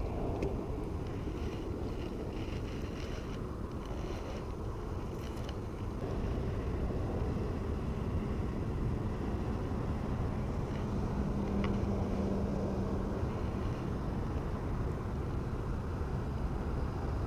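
Wind buffeting the microphone as a steady low rumble, with a faint steady hum from about six to thirteen seconds in.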